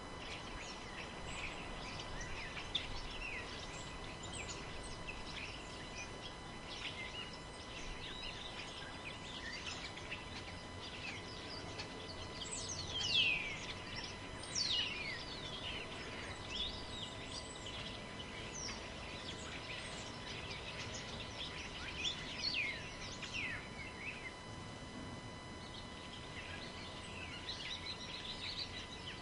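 Forest ambience: a steady rush of wind through the trees under many small birds chirping in quick, downward-sweeping calls, the loudest about halfway through.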